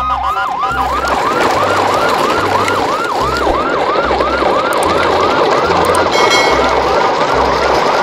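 Siren in a fast yelp, its pitch sweeping up and down about three to four times a second, over a low pulsing beat.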